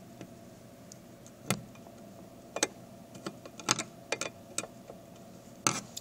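A screwdriver and screw clicking and tapping against the cover of an Edwards fire alarm pull station as the screw is worked back in: irregular sharp ticks, the loudest about a second and a half in and again near the end.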